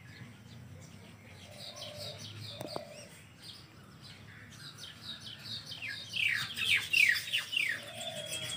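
Songbird calling: faint chirps at first, then about six seconds in a quick run of loud, falling chirps.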